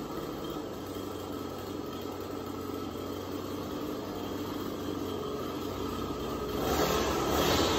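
Echo SRM-225 string trimmer's small two-stroke engine idling steadily, getting louder near the end.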